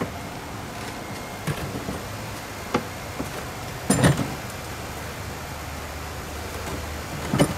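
A few short knocks and clunks as a plastic laundry tub is carried into place and its legs are set down on brick footings. The loudest cluster comes about four seconds in, over steady background noise.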